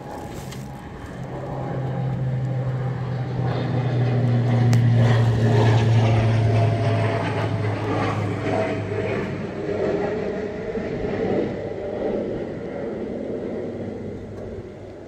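Engine drone passing by: a steady low hum that swells over the first few seconds, is loudest about five seconds in, then fades away.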